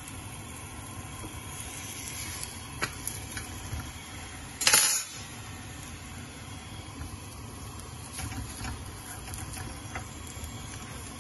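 A paratha frying gently on an oiled tawa over a gas burner, a low steady sizzle, with a few small clicks and one short, loud metal clatter a little under halfway through.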